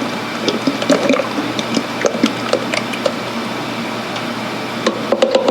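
Motor oil poured from a bottle into the engine's oil filler: a steady pour with small irregular gurgles.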